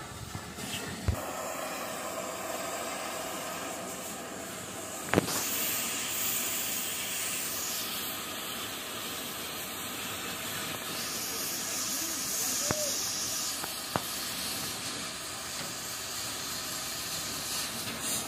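Oxy-fuel cutting torch hissing steadily as it cuts through the steel frame of a heavy dump truck. A sharp crack comes about five seconds in, after which the hiss runs louder and sharper for several seconds. A few lighter clicks follow.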